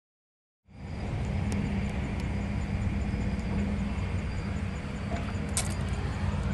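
After a brief silence, steady outdoor background noise sets in: a low rumble of construction machinery with a few faint clicks.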